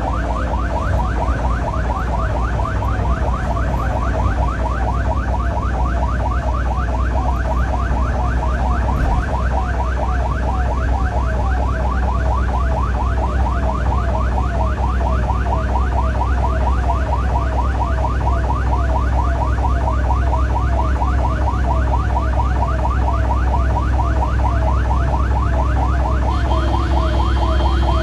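Ambulance electronic siren on a fast yelp, rising wails repeating about four times a second, over the steady low rumble of the ambulance's engine and tyres, heard from inside the cab. A steady tone joins in near the end.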